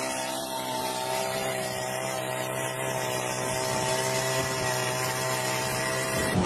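Small petrol engine running at a steady pitch, driving a motorised pole-climbing rig up a concrete pole.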